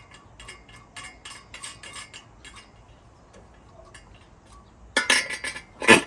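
Light metallic clicks and rattles of the air cleaner parts being handled as it is taken off the carburetor, then two louder metal clanks about five seconds in and near the end.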